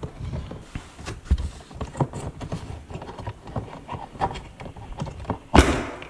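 Small plastic clicks and knocks as a hand works the float-switch sensor housing loose in the base pan of a Bosch dishwasher. Near the end comes one loud snap as the sensor clicks free.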